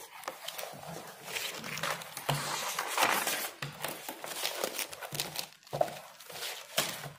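Paper pages of a spiral-bound notebook being leafed through: an irregular run of rustles and flicks.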